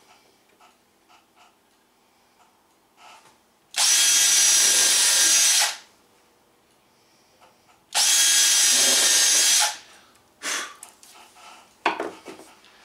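Cordless drill pre-drilling pilot holes in a wooden spar: two runs of about two seconds each at steady speed, then a few light clicks and knocks.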